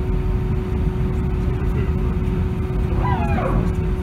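Steady low rumble of an airliner's engines and air systems at idle, heard inside the cabin, with a steady hum running through it. A brief high-pitched, voice-like cry falls in pitch about three seconds in.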